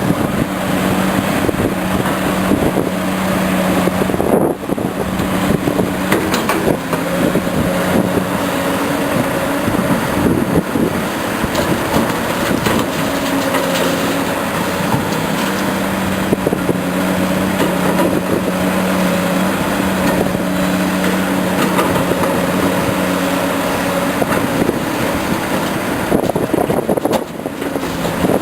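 Excavator engine running continuously while digging, its pitch and strength shifting a little as it works, with scattered knocks and clatter over it.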